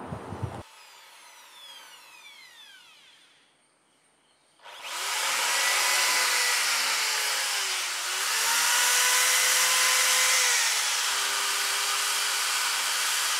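A Black & Decker 13 mm hammer drill spinning a flap wheel sander against a rusty steel plate: a steady motor whine over an abrasive rasp, starting about four and a half seconds in. The pitch sags and recovers around eight seconds in, then settles a little lower near the end. Before it, a faint falling swoosh.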